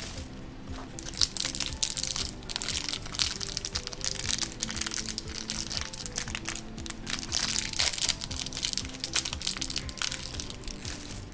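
Crinkling, crunching and tearing of Doorables toy packaging being opened by hand, with background music of held notes underneath.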